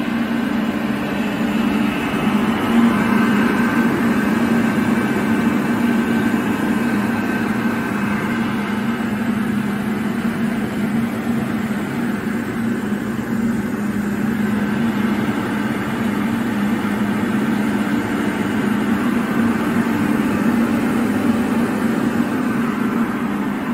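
KAESER SK27T screw air compressor running steadily: an even machine drone with a strong low hum.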